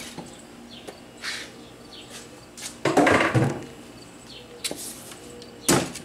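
Wooden boards and a bar clamp being handled on a sawhorse: a few short knocks, and one louder, longer clattering scrape of wood about halfway through.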